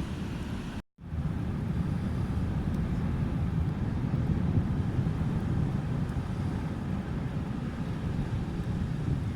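Sea surf washing onto rocks, a steady low rumble that cuts out for an instant about a second in.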